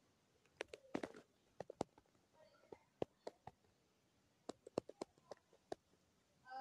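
Faint, irregular sharp clicks and ticks, some in quick pairs, over near silence.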